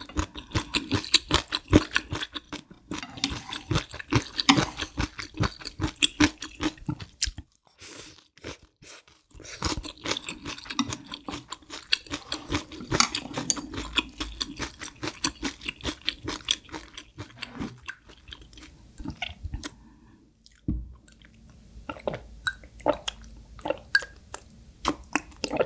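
Close-miked eating: mouthfuls of malatang noodle soup being chewed, in dense runs of short wet mouth sounds broken by a pause about a third of the way in. Near the end, gulps from a glass mug of drink.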